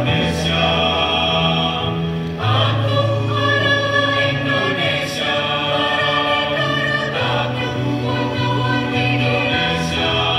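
Mixed choir of men's and women's voices singing together in long held chords over a low bass line, with the chords changing every few seconds.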